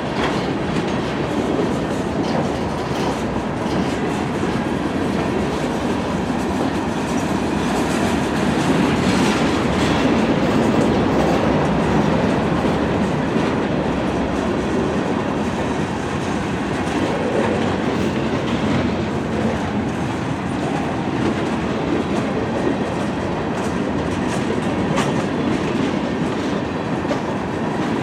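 A freight train running on the rails: a steady rolling rumble of wheels on track, with no change in speed or breaks.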